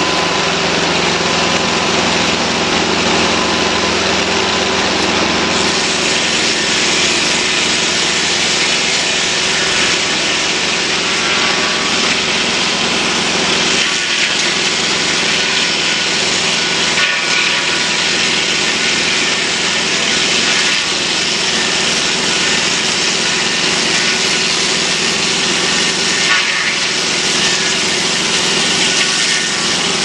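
Mobile Dimension portable circular-blade sawmill running at full speed as its carriage cuts along a log: a steady engine drone under the hiss of the blade through the wood.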